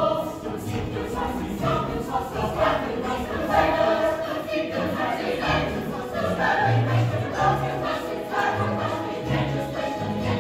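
A stage musical's cast singing together in chorus over instrumental accompaniment with sustained bass notes.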